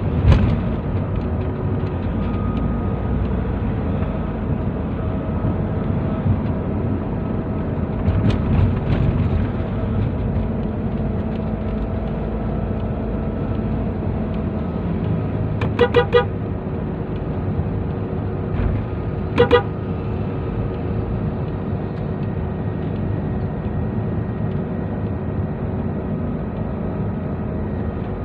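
Nissan NV350 van driving on the road, with a steady engine and road-noise drone. A vehicle horn gives a couple of quick toots about 16 seconds in and another short toot about 19 seconds in.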